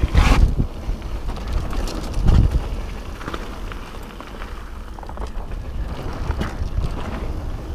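Kona Process mountain bike riding fast down a dirt trail: tyres rumbling over the ground and the bike rattling over bumps, with wind buffeting the microphone. Heavy knocks come right at the start and again about two seconds in, and it runs quieter through the middle.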